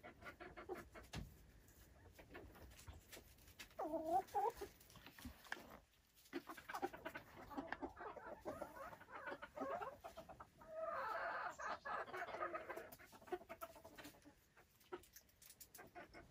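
Silkie chickens clucking softly, with a louder call about four seconds in and a longer, louder stretch of calling about eleven seconds in.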